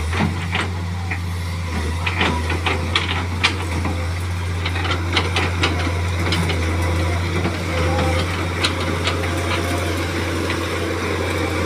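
Wheeled excavator's diesel engine running steadily with a low, even hum. Several sharp clicks and knocks come in the first half.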